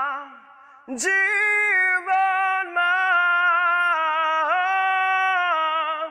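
A solo singer holding long, drawn-out notes with vibrato, unaccompanied. The voice comes in about a second in after a short pause and stops just before the end.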